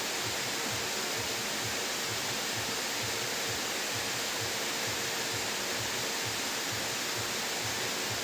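Steady hiss of heavy rain, with a faint low pulse about twice a second underneath.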